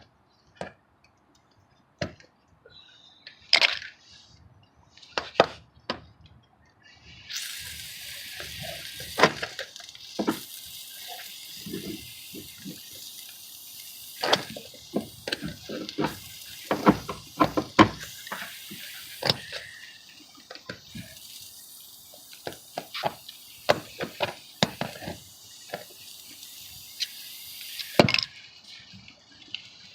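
Pliers and side cutters clicking and scraping on a screw head stuck in a car tire, in scattered sharp metal clicks. A steady hiss starts about seven seconds in and cuts off suddenly near the end.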